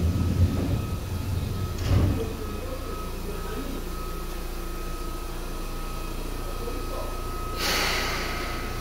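Seibu 2000 series electric train: a low running rumble ending in a clunk about two seconds in, then a steady quiet hum with a faint high tone while it stands. Near the end a sudden hiss of compressed air that fades over about a second.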